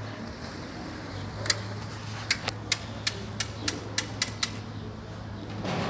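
A run of about ten sharp clicks, irregularly spaced over about three seconds and starting about a second and a half in, from work fixing a banner to a stage truss. A steady low hum runs underneath.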